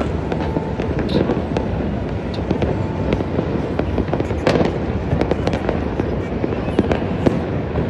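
Fireworks and firecrackers going off all over the city: a continuous crackle of many overlapping bangs and pops with no letup.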